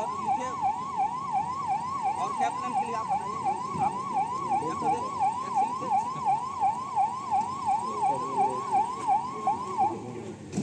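Electronic siren in a fast yelp, its pitch rising and falling about three times a second, cutting off near the end.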